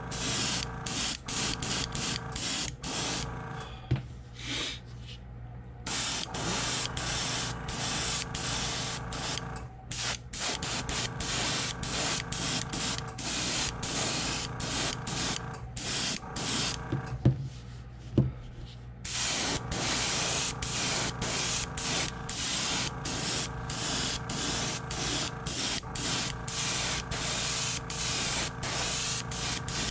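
Airbrush spraying a white base coat of Createx opaque white, hissing in quick short bursts as the trigger is pulsed on and off, over a steady low hum. The spraying stops twice, with a sharp knock about four seconds in and two more around seventeen and eighteen seconds.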